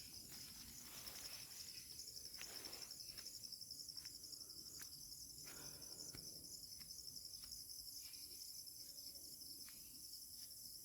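Faint crickets chirping: a steady, high, fast-pulsing trill, with a few soft ticks scattered through it.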